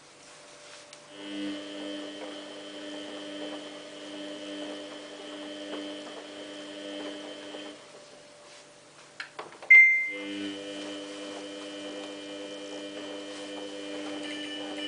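Samsung WF8804RPA washing machine running its service-mode pre-wetting cycle, with a steady motor hum that stops for a couple of seconds and then starts again, as the drum pauses between turns. In the pause comes one brief, sharp, high-pitched sound, the loudest thing in the stretch.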